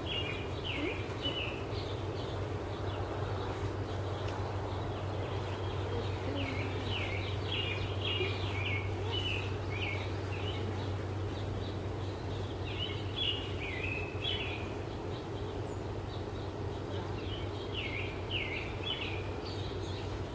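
A songbird singing four phrases of quick, high notes a few seconds apart, over a steady low hum.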